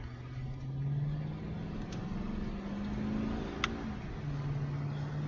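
Car engine heard from inside the cabin, accelerating with its pitch climbing for about three seconds, then dropping back and running steadily. A single sharp click comes about two-thirds of the way through.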